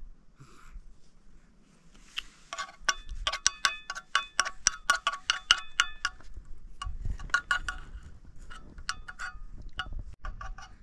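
Small metal chimes tinkling: many quick, irregular strikes that ring on, in a dense spell, then a sparser one.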